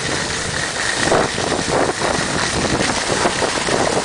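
Wind buffeting the microphone and skis scraping and sliding over packed snow while the skier holding the camera moves down the slope.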